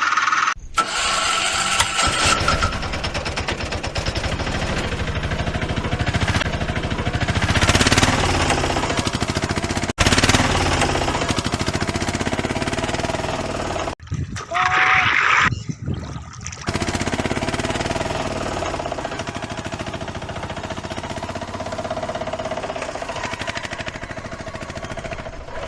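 A battery toy's small electric motor and plastic gears running with a fast, steady rattle, broken briefly a few times.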